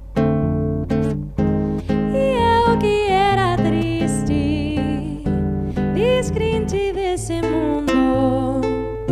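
A woman singing a slow bossa nova melody with vibrato, accompanied by a plucked nylon-string classical guitar.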